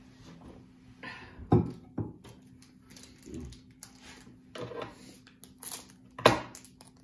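A small candy packet being handled and torn open by hand, with scattered rustles and a few sharp knocks, the loudest knock near the end.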